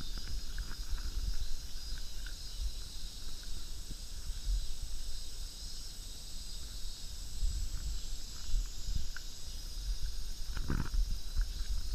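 Outdoor ambience: an uneven low wind rumble on the microphone under a steady high-pitched hiss, with a few faint ticks and one short louder sound near the end.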